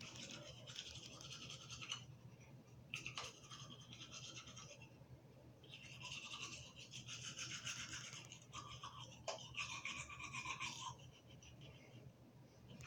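Manual toothbrush scrubbing teeth with quick back-and-forth strokes, faint and scratchy, in several bursts with short pauses between them.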